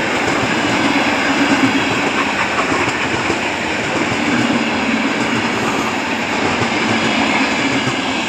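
ER9T electric multiple unit running past on the rails, a steady loud rumble of its wheels and cars on the track.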